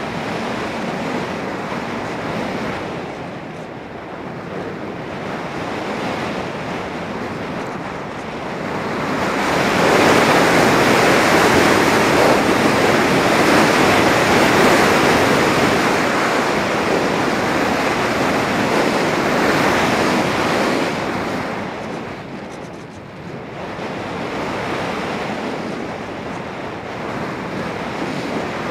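Rushing airflow buffeting the onboard camera's microphone on a Volantex Phoenix 1600 RC glider in flight, a steady wind noise with no motor tone, swelling louder for about ten seconds in the middle while the glider banks steeply.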